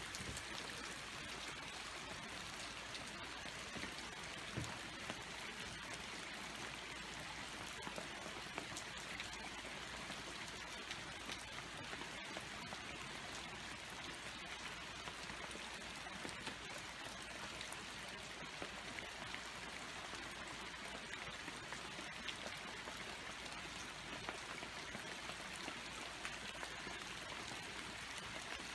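Rain-swollen stream running steadily with a constant rush of water.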